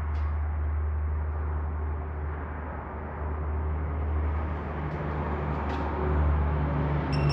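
Steady low hum of background noise, with a few light clicks and a short ringing metallic clink near the end.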